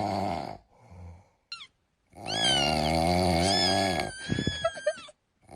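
A cat's long, wavering yowls, with a short high meow about a second and a half in.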